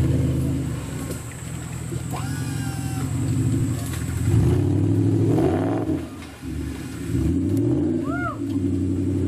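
Off-road 4x4's engine revving hard, its pitch rising and falling again and again as the driver works the throttle, with a brief dip about two-thirds of the way through. A couple of short high-pitched calls sound over it.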